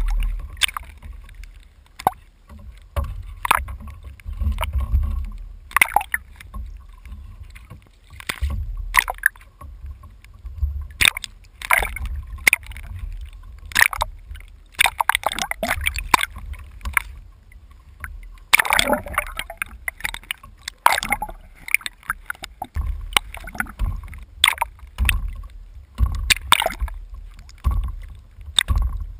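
Water slopping and splashing against a kayak's hull and a low-mounted camera that dips under the surface, over a constant low rumble, with many sharp, irregular knocks and splashes.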